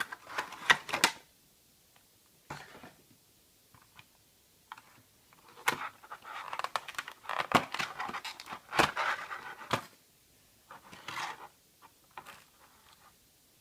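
A small cardboard model-airplane box and its plastic packaging being opened by hand: scattered clicks, scrapes and rustling in irregular bursts with short quiet gaps, busiest around the middle.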